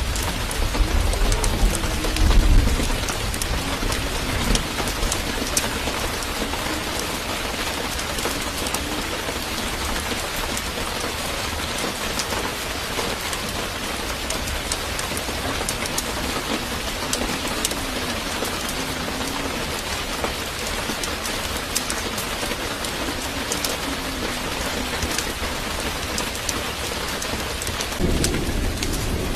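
Steady, even rain-like hiss sprinkled with faint ticks, with a low rumble about one to three seconds in.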